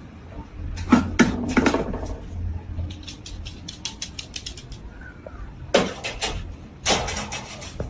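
A small dog's claws clicking on a wooden floor as it trots along, then a wire dog crate clattering and rattling twice near the end as the dog climbs in. A faint low hum runs underneath.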